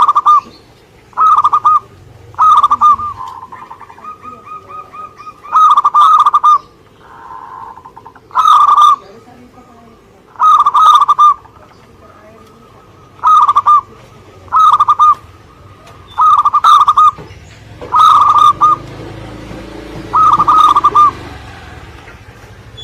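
Zebra dove (perkutut) singing: about a dozen short, loud cooing phrases repeated every one to three seconds.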